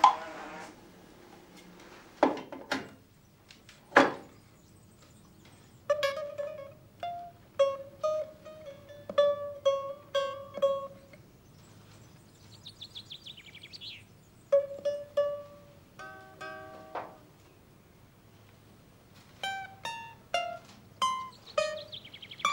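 A small long-necked lute plucked note by note in a slow, halting tune, with a quick run of repeated strokes about two-thirds of the way through. A few sharp knocks come in the first few seconds.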